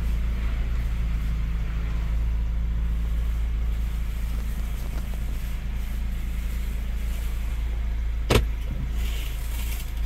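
Ford Bronco engine idling, heard from inside the cabin as a steady low hum, with one sharp click about eight seconds in. No seatbelt chime sounds: the seatbelt minder has been disabled.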